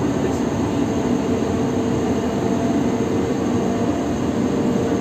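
Locomotive running through a rail tunnel, heard from inside its cab: a steady, even rumble with a constant droning hum.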